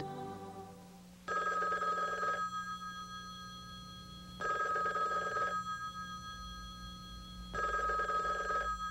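Telephone ringing three times, each ring about a second long and about three seconds apart. The tail of a music track fades out just before the first ring.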